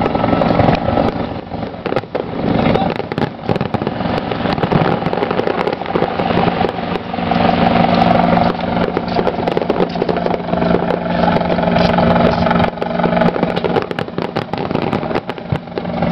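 Fireworks going off in many quick pops and crackles over a steady drone, with voices in the background.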